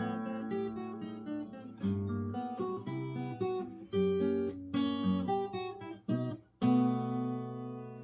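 Taylor GS Mini-e Koa Plus acoustic guitar played fingerstyle: a picked melody over bass notes. About two-thirds of the way in, a loud chord is struck and left ringing, fading away.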